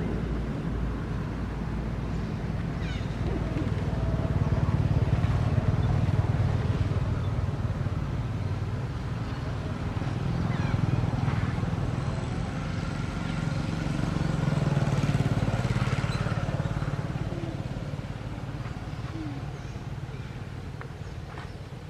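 Low rumble of motor vehicles going by, swelling and fading several times before dying away near the end.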